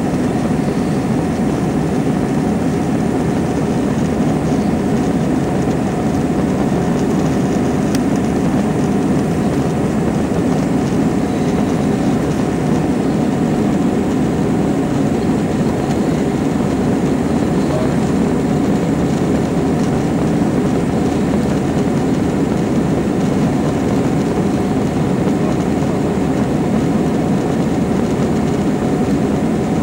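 Steady low drone inside a jet airliner's cabin during the climb after takeoff: engine and airflow noise through the fuselage, even throughout.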